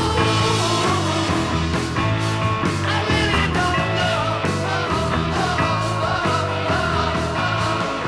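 Rock song with a sung vocal line over a steady beat.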